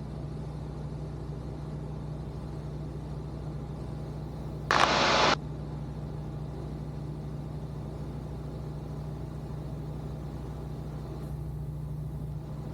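Steady drone of a Van's RV-12iS light aircraft's Rotax 912 iS engine and propeller in cruise, heard inside the cockpit, with steady low tones over a light hiss. A short, loud hiss cuts in about five seconds in and lasts about half a second.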